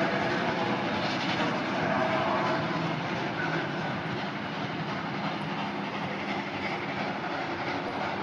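Steam locomotive 94 1538, a Prussian T 16.1 tank engine, working under steam as it pulls a train out. It makes a dense, steady noise that gets a little quieter after about three seconds as it draws away.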